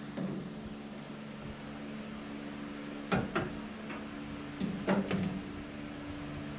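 A few knocks and clunks of parts being handled, two close together about three seconds in and a cluster near five seconds, over a steady mechanical hum.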